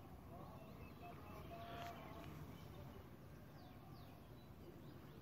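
Near silence: faint outdoor background with scattered distant bird chirps and one brief faint knock about two seconds in.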